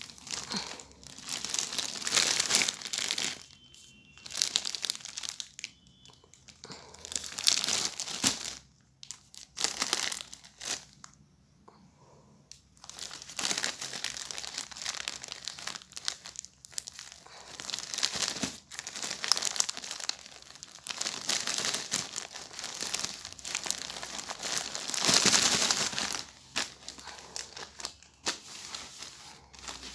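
Clear plastic wrapping around a pack of paper napkins crinkling in irregular bursts as it is handled and torn open, with the paper napkins rustling as one is drawn out.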